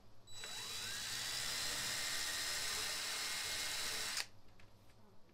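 DeWalt cordless impact driver with a small drill bit spinning up and running steadily for about four seconds as it drills a pilot hole into a cabinet door, then stopping abruptly.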